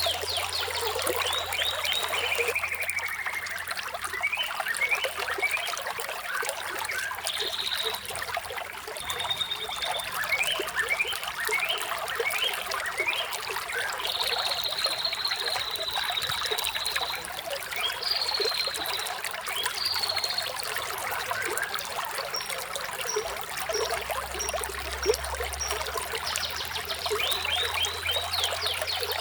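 Steadily trickling running water with birds chirping over it. Quick runs of sharp chirps come near the start and again at the end, with longer held whistled notes and a few thin high peeps in between.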